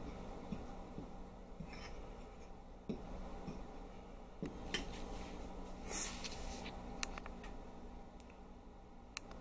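A metal spoon stirring flour and baking soda in a small bowl: faint scraping, with light clicks of the spoon against the bowl.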